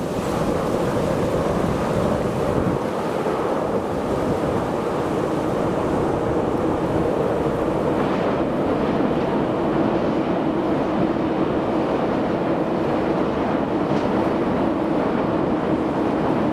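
Steady wind noise on the microphone, with a low, even rumble underneath from an eight-car electric double-deck intercity train crossing a steel truss bridge.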